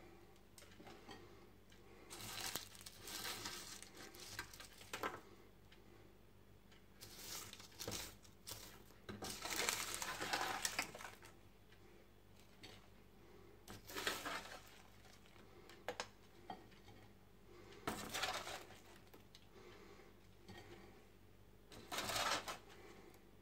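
White plastic spoon scraping and scooping diced potatoes and sausage off a parchment-lined baking sheet, with crinkling of the baking paper and pieces tipped onto a plate. About six separate scrapes come a few seconds apart.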